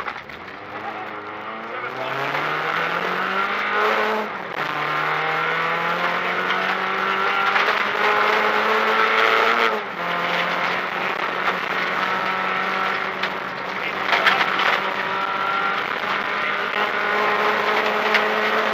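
Renault Clio rally car's engine heard from inside the cabin, pulling hard at high revs. The revs climb for about two seconds, drop sharply with an upshift about four seconds in, then hold high, with a brief lift about ten seconds in.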